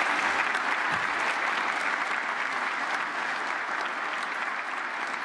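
Audience applauding, a steady clapping that slowly fades.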